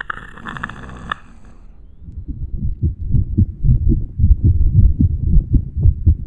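A heartbeat and blood-flow sound effect: low, pulsing thumps, several a second, that build up about two seconds in. It follows a short raspy noise at the start.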